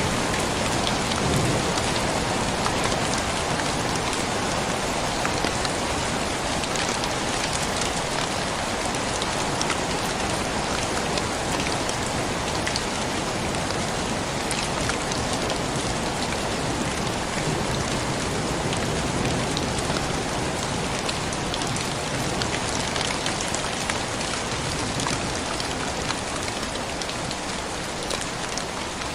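Steady rain falling, an even hiss of drops on surfaces, with a low rumble of thunder dying away in the first second or two.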